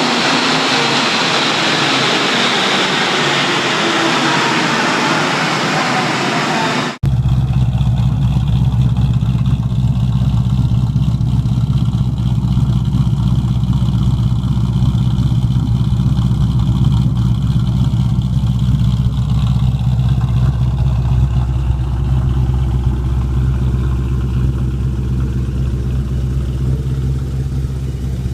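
Car engine: at first a loud revving rush with a whine falling in pitch, then after a sudden cut, a steady low idle for the rest of the time.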